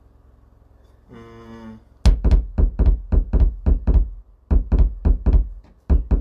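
A quick, irregular run of about fifteen loud thumps right on the microphone, like a studio mic being tapped, with a short break in the middle. A brief steady tone sounds about a second in, before the thumps.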